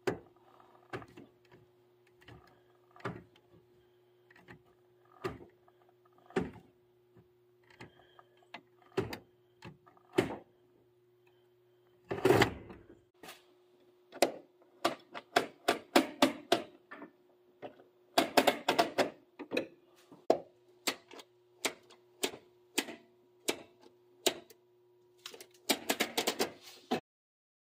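Column gear shifter and cable shift linkage of a 6R80 automatic being worked through the gears: irregular clicks and clunks from the detents and linkage, sometimes in quick runs, over a faint steady hum. It cuts off suddenly near the end.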